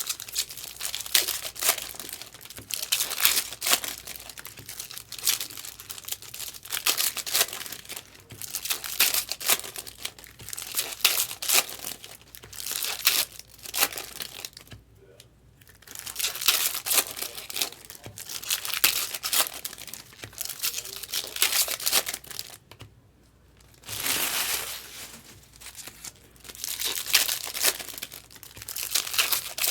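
Foil trading-card pack wrappers being torn open and crinkled, with cards shuffled in the hand, in uneven rustling spells with two short pauses.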